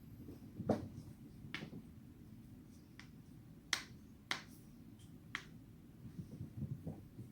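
Joints being cracked: about five sharp, separate pops at irregular intervals, with a few fainter clicks and soft low bumps of body movement near the end.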